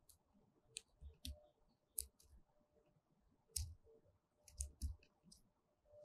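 Grey-headed woodpecker pecking at a plastic-wrapped food bundle tied to a pole: a string of short, sharp, irregular taps and clicks, some in quick pairs or triples, the loudest about two seconds in and again around three and a half and five seconds.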